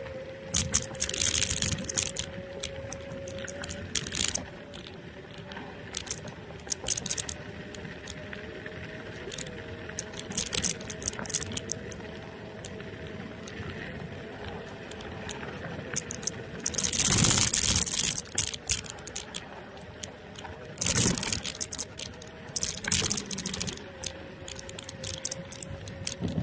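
NIU KQi2 electric scooter riding over rough asphalt: the motor gives a thin, steady whine whose pitch steps up slightly about four seconds in and drops back near the end. Frequent clicking and rattling from the scooter over the bumps, with gusts of wind on the microphone, the loudest a little past the middle.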